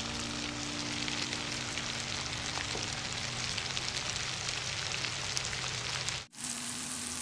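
Chicken, capsicum and carrot sizzling in oil in a wok: a steady frying hiss that breaks off for an instant about six seconds in.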